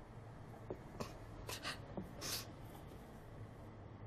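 Quiet room tone with a few faint, short soft noises of someone moving about.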